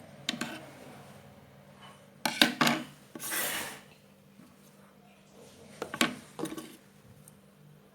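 Several short clusters of sharp knocks and clatter, as of small hard objects being handled or set down, with a brief rustling scrape about three seconds in.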